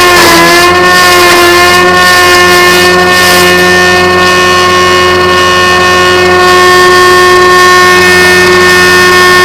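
Homemade log-rounding machine running loud and steady, a droning whine with several pitched tones. Its pitch sags briefly at the start and recovers within about a second, then holds even.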